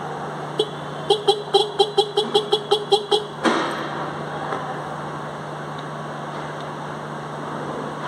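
Electric disc-type car horn sounded by tapping its lead on the battery terminal: one short beep, then a rapid string of about a dozen short beeps, roughly five a second, ending in a sharp click at about three and a half seconds.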